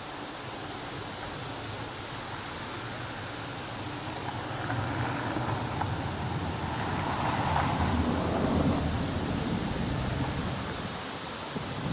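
Steady rushing noise that swells for several seconds through the middle and eases off toward the end.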